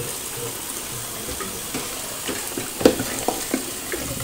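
Tap water running into a plastic basin of rinse water while hands squeeze and swish a wet knitted jumper, with a few small splashes in the second half, the loudest about three seconds in.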